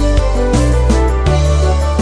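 Background music with held notes over a steady bass and a regular beat.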